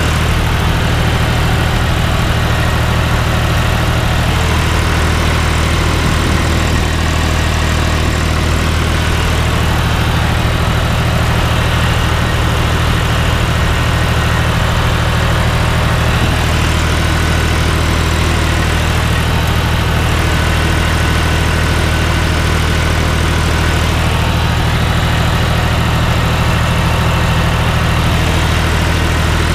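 John Deere tractor's diesel engine running at a steady speed while pulling a rotary hay tedder across the field, heard from the open cab.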